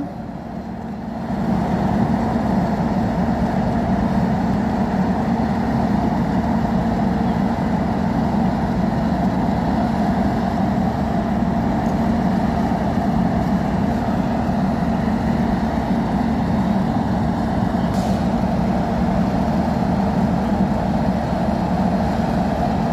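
Class 50 diesel locomotive's English Electric 16-cylinder engine running at the platform on departure. It is steady and loud, rising in level about a second and a half in, then holding.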